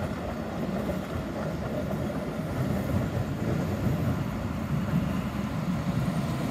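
Tatra T4D tram train approaching and rolling in along the track: a steady rumble of wheels on rails, growing slowly louder as it nears.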